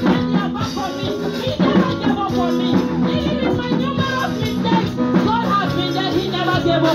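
A woman singing a worship song into a microphone over instrumental music, with shaken rattle-like percussion keeping the beat.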